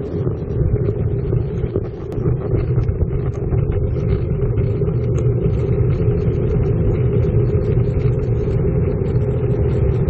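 Street traffic heard from a cyclist's camera: a steady rumble of car engines and tyres, growing louder over the first few seconds. A car comes up close alongside near the end.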